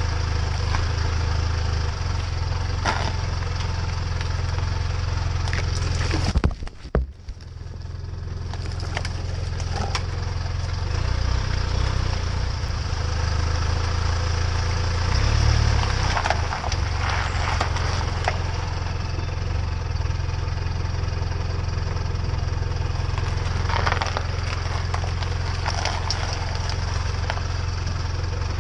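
Off-road vehicle's engine idling steadily, heard from beneath the vehicle, with scattered sharp cracks and crunches as its tyres roll over and crush things on the icy pavement.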